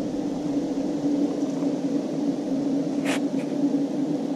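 A steady hum holding one low tone with a fainter overtone above it, and a single short click about three seconds in.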